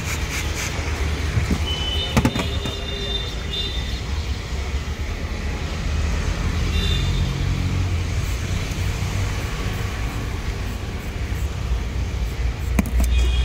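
Steady low rumble of road traffic, with a hand grater scraping in quick strokes right at the start and a couple of sharp knocks about two seconds in and near the end.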